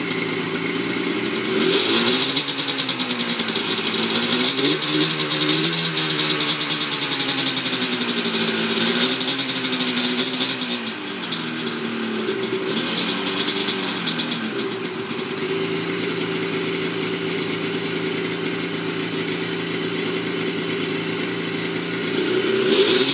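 Freshly rebuilt Yamaha Banshee twin-cylinder two-stroke engine running on its first start. It is revved up and down repeatedly over the first ten seconds or so, then settles into a steady idle, with a rev again near the end.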